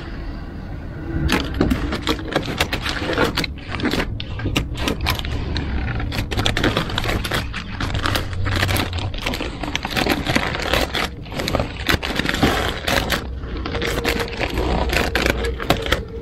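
Vinyl advertising sticker being peeled by hand off a car door: a dense run of irregular crackles and snaps as the adhesive film pulls away from the paint. A steady hum comes in near the end.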